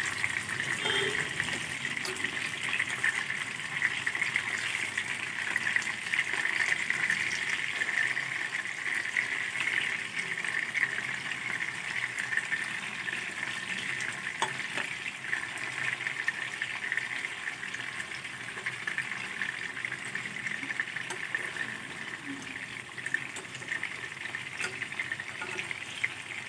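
Chicken seekh kebabs shallow-frying in oil in a non-stick pan: a steady sizzle with fine crackling, and a few light clicks of metal tongs as the kebabs are turned.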